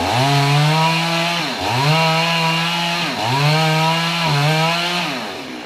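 Two-stroke chainsaw running at high revs, its pitch sagging and recovering four times about a second and a half apart, as when the chain bogs in the cut or the throttle is eased. Near the end it drops down toward idle.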